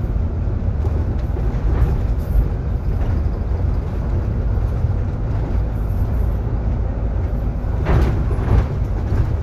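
Solaris Urbino 18 IV articulated city bus driving, heard from inside: a steady low rumble of engine and road noise, with a short louder noise about eight seconds in.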